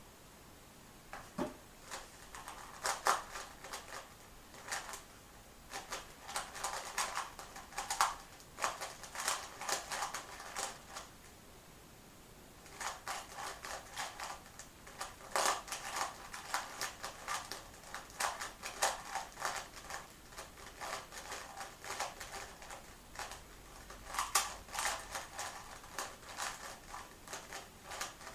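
Plastic 3x3 Rubik's cube clicking and clacking as its layers are turned fast in a speedsolve, using only wide double-layer r, u and f turns. The turns come in quick bursts separated by short pauses, with one longer pause near the middle.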